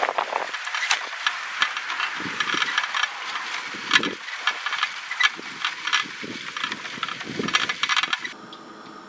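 Grey plastic container rattling and clattering as it is moved along, with the camera riding in it, giving many sharp knocks. About eight seconds in the sound cuts to a quieter steady hiss.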